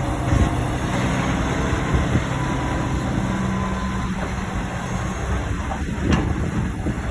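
Excavator engine running steadily, with a faint thin whine for a few seconds and a short sharp click about six seconds in.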